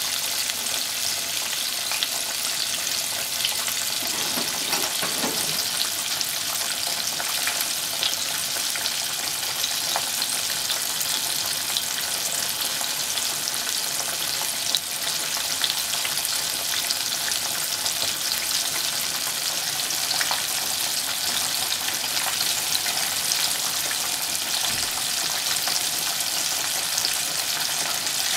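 Breaded pork cutlets (tonkatsu) deep-frying in hot oil: a steady sizzle with frequent small crackles and pops.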